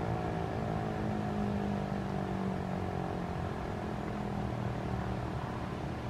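Federal Signal Eclipse-8 DC-powered outdoor warning siren winding down after its full alert: its tone slowly falls in pitch and fades as the rotor coasts to a stop.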